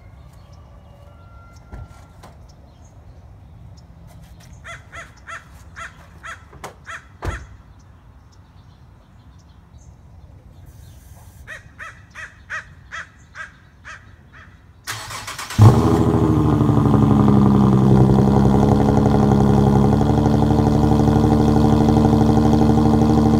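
Two runs of quick, evenly spaced chirps. Then, about fifteen seconds in, a muffler-deleted 2015 Infiniti Q50 cold-starts: a brief whir of cranking, a loud flare as the engine catches, then a steady high idle whose note shifts slightly about five seconds later.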